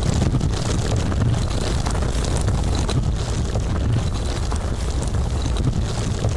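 Landslide sound effect: a continuous deep rumble of moving earth and rock, steady in level, with faint scattered clicks of small stones over it.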